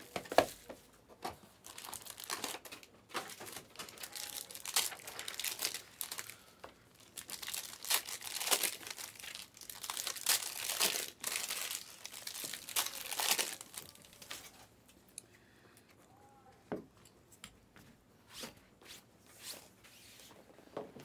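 Plastic wrappers of trading card packs being torn open and crinkled: a busy run of rips and rustles that thins out about fourteen seconds in to a few soft handling sounds.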